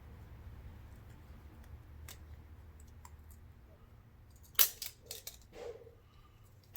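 Sharp plastic clicks and cracks, several in quick succession about four and a half seconds in, as a glued-down plastic back panel is pried and snapped free of a Samsung Galaxy A50. A faint low hum runs underneath.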